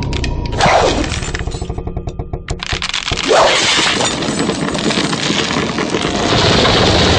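Animated film soundtrack: dramatic music under cracking and crumbling sound effects. Two falling swoops come about half a second in and again near three seconds, with a run of rapid ticking between them.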